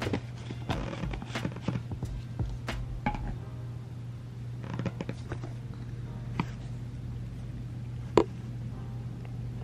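Cat licking and chewing catnip: a run of small wet clicks and smacks, thinning out after the first few seconds, with one sharp click about 8 seconds in, over a steady low hum.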